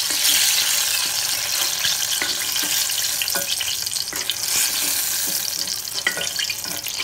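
Hot oil sizzling in a clay pot as deep-fried brinjal (eggplant) pieces are lifted out with a wooden spatula. Scattered short knocks and scrapes run through the sizzle.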